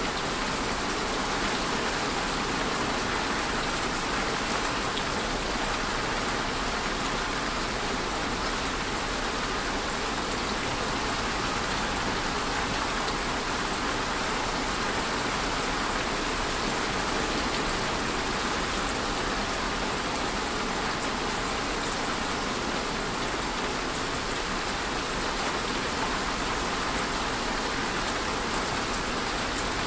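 Steady rain falling, an even hiss of drops with faint individual ticks and no change in intensity.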